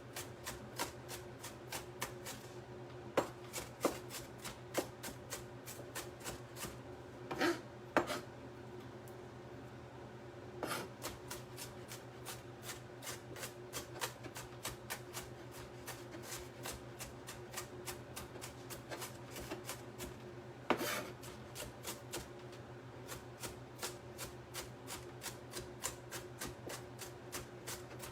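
Kitchen knife mincing red onion on a cutting board: quick, steady chops about three a second, with a few louder knocks now and then.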